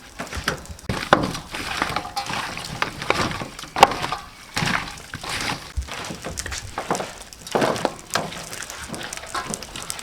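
Chicken drumsticks being mixed with chili sauce in a bowl: irregular knocks and clinks of the meat and utensils against the bowl.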